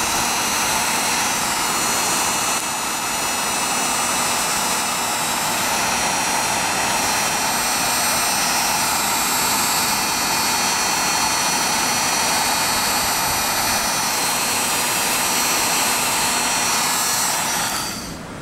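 Handheld heat gun running, a steady rush of blown hot air with a faint fan whine, aimed at plastic drop cloth to shrink it onto a skeleton's arm. The sound drops in level near the end.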